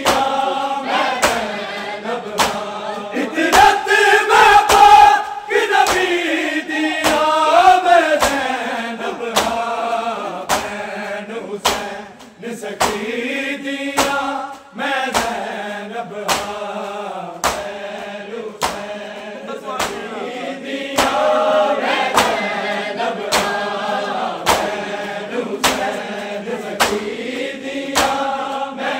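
A crowd of men chanting a Punjabi noha in unison, over a steady rhythm of open-hand slaps on bare chests (matam), about one to one and a half beats a second.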